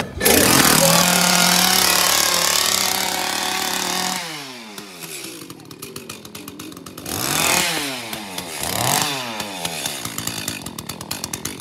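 A small engine running loudly at a steady pitch, then dropping off about four seconds in and revving down and back up twice more.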